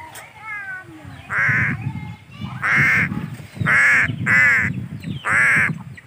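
Crows cawing: five loud caws, two of them back to back, after softer calls in the first second.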